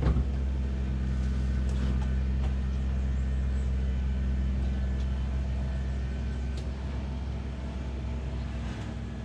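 A steady low machine hum. There is a sharp metallic clank at the very start and a few light knocks after it, as the hoisted engine is shifted about in the engine bay.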